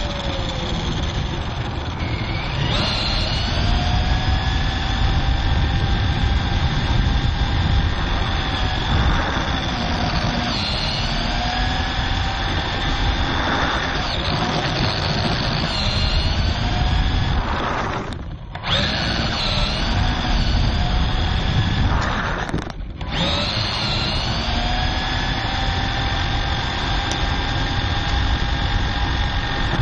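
RC car's motor whining, recorded from on board the car: the pitch glides up and holds several times as it speeds up, over a constant rumble of the tyres on asphalt. Twice, about two-thirds of the way through, the sound cuts out for a moment.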